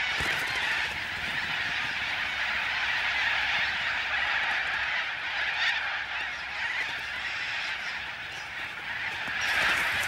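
A huge flock of little corellas calling all at once, a steady, dense din of overlapping cockatoo calls that swells a little near the end.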